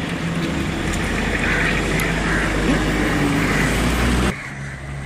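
A vehicle engine running steadily, which cuts off abruptly about four seconds in.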